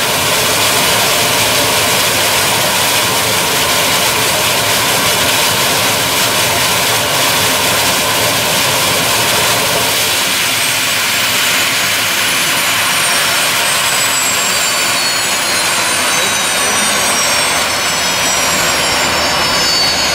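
Turbine engines of a modified pulling tractor running, a loud, steady jet-like rush with a high whine. From about halfway, several high whistling tones slide slowly downward.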